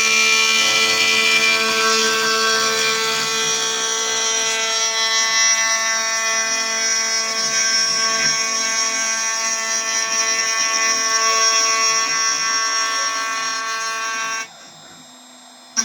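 CNC machine running with a steady whine made of many high tones. The sound drops away abruptly about a second before the end, then starts again.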